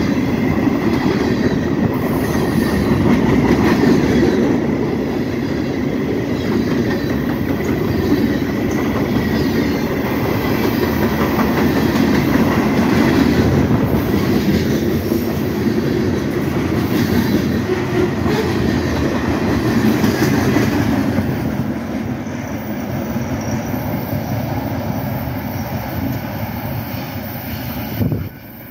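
Freight train cars, covered hoppers of a BNSF manifest freight, rolling past at speed close by: a loud, steady rumble and clatter of steel wheels on the rails. It eases off somewhat over the last several seconds and drops away suddenly near the end.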